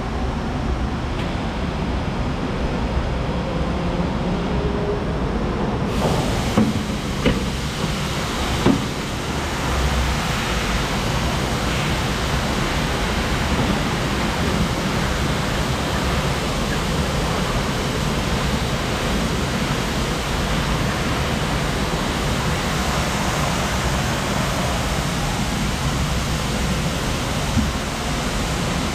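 Steady, loud industrial hiss and rumble of shop machinery or air, with no clear rhythm. It turns brighter and hissier about six seconds in, with a few sharp knocks between about six and nine seconds.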